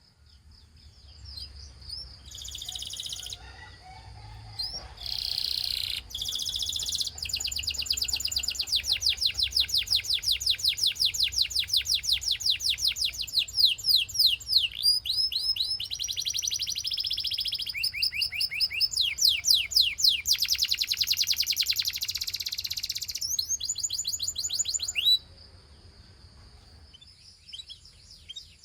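Gloster canary singing: a long song of fast trills, each a rapid run of repeated high notes sweeping down in pitch, broken by short pauses. The song stops abruptly about 25 seconds in.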